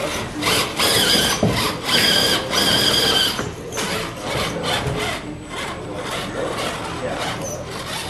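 A 1/10-scale RC rock crawler climbing the course: its electric motor whines in short pulls, strongest in the first half, while its tyres and chassis scrape and scrabble over the obstacles.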